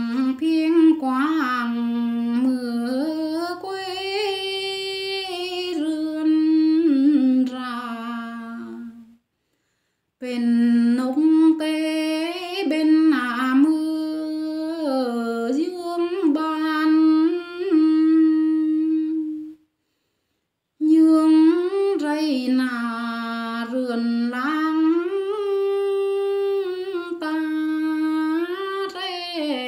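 A woman singing a Tày folk song in long, held, sliding phrases, with no instrument. Three phrases are heard, each broken off by a short silence, about nine and twenty seconds in.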